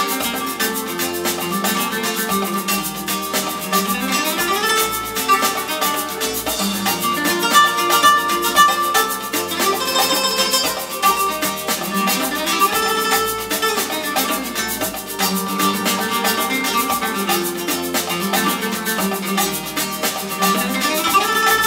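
Recorded music played back through a pair of Aurelia Magneta II stereo loudspeakers, picked up by a camera's built-in microphone, so the sound is thin, with almost no deep bass.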